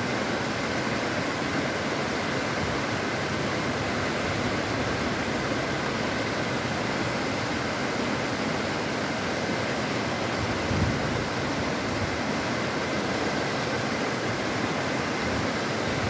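Whitewater of a fast, rocky mountain stream rushing over boulders: a steady, even rushing noise that never changes.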